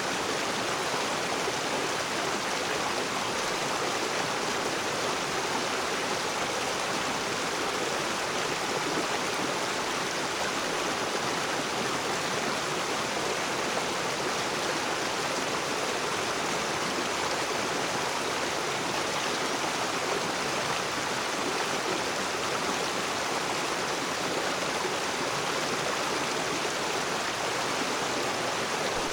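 River water rushing over rocks: a steady, even rush with no pauses.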